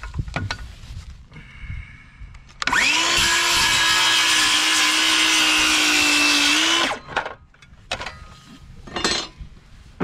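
DeWalt cordless circular saw spinning up with a rising whine and cutting through a wooden board for about four seconds, then stopping abruptly. Light handling knocks come before and after the cut.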